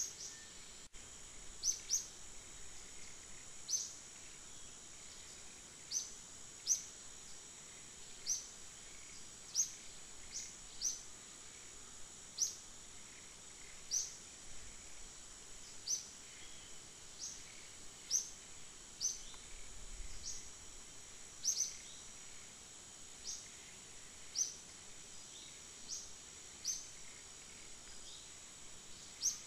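Bird in the forest canopy giving short, high, quickly rising chirps, one every second or two, over a steady high-pitched drone.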